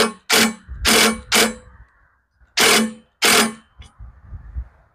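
A motorised tool run in six short bursts, each under half a second: four in quick succession, then a pause of about a second, then two more.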